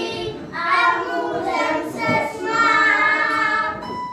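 A group of young children singing together in sung phrases, stopping near the end.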